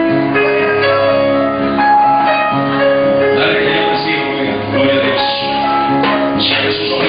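Worship music: an electronic keyboard playing long held chords while a man sings into a microphone.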